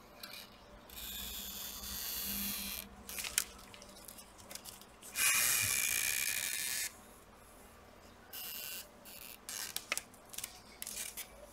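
Adhesive strip being pulled out from under a laptop display panel. Spells of dry, hissing scraping come as it stretches and peels free; the loudest and longest is about five seconds in. A few small clicks and ticks follow near the end.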